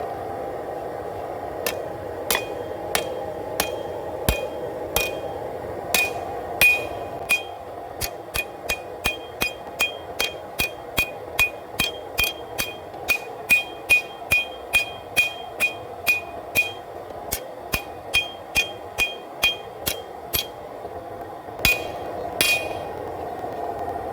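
Hand hammer striking hot W-2 steel on an anvil, forging down the tip of a kitchen knife blade: a long run of blows, about two to three a second, each with a short metallic ring. There is a brief pause near the end before two final blows, over a steady background hiss.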